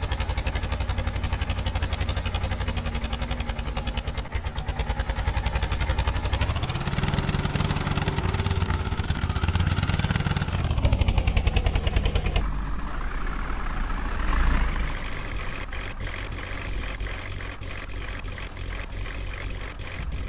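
Heavy diesel engine running with a steady throbbing note, revving up about six seconds in and easing back down a few seconds later. About halfway through the sound changes abruptly to a different engine note that rises briefly and settles.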